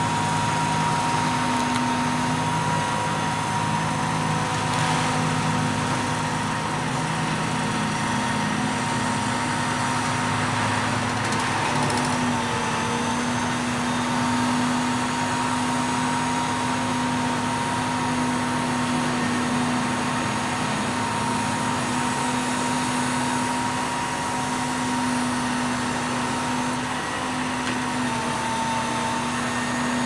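Grapple truck's engine running steadily to drive its hydraulic loader, with a steady whine held over the hum that dips briefly about twelve seconds in and again near the end.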